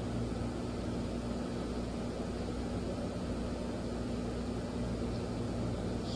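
Steady hum and hiss of a room air-conditioning unit running, with a few steady low hum tones and no change in level.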